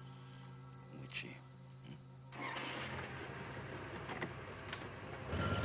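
Crickets chirping steadily in the night. A rushing noise joins a little over two seconds in, and near the end a car engine starts and runs.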